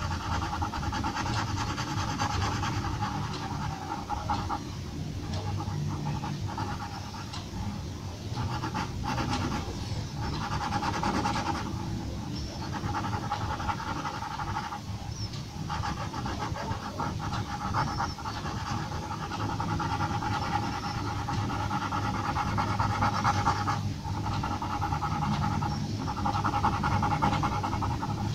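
Graphite pencil scratching on drawing paper in quick, repeated hatching strokes, with brief pauses where the pencil lifts off.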